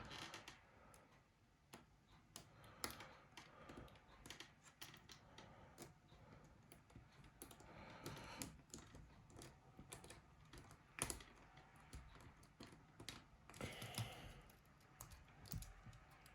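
Faint, irregular small clicks and taps of a small screwdriver and tiny screws being driven into a Nokia E71 mobile phone's frame.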